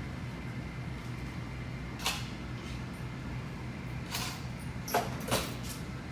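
Several sharp clicks and knocks of things being handled, one about two seconds in and three more close together near the end, over a steady low hum.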